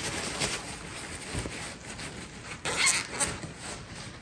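Rustling handling noise, with a few sharp clicks and knocks about three seconds in.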